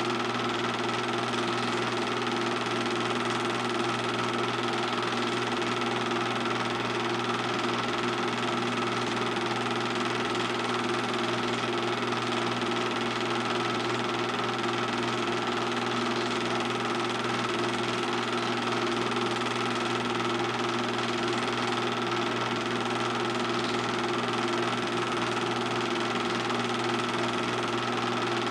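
Film projector running: a steady mechanical hum and whir that does not change.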